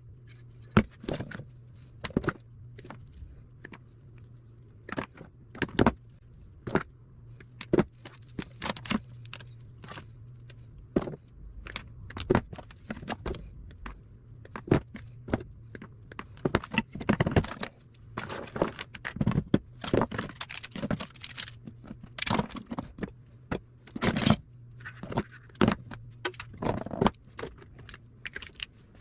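Irregular clinks, clicks and scrapes of metal and plastic parts and tools being handled while food service scales are taken apart, over a steady low hum.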